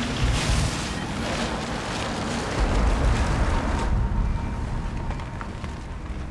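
Wind rushing over open ground with a low rumble; the hiss swells for the first four seconds, then eases.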